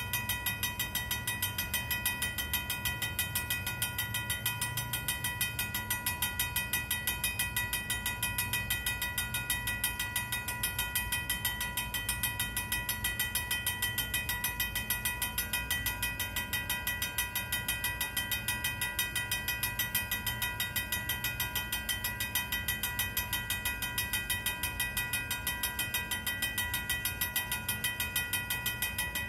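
Vintage mechanical railroad-crossing bell ringing fast and without pause, in rapid even strokes. It is the warning that the crossing is active while a freight train occupies it. A low rumble runs underneath.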